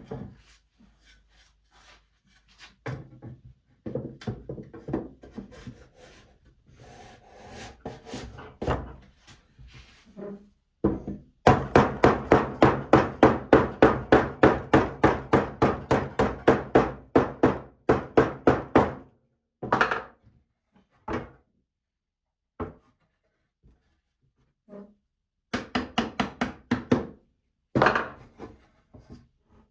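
Hammer tapping on a wooden tongue-and-groove panel frame to seat the pieces: a fast, even run of blows about four a second for some seven seconds mid-way, with scattered wood knocks and scraping before it and a shorter burst of taps near the end.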